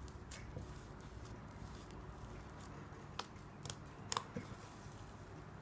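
Cloud slime being poked and squeezed by hand: faint sticky crackles with a few sharp clicks, the clearest three to four seconds in.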